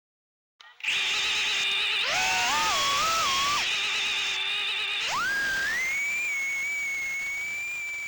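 Whine of a micro FPV quadcopter's small brushless motors, stepping up and down in pitch with the throttle. About five seconds in it rises sharply and then holds a high steady pitch.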